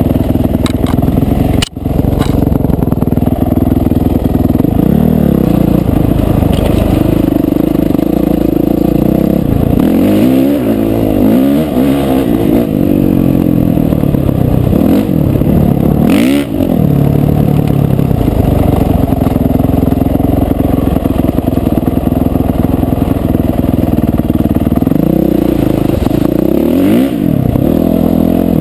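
Dirt bike engine running under way, its pitch rising and falling again and again as the throttle opens and closes and the gears change. A brief sharp click and dropout about two seconds in.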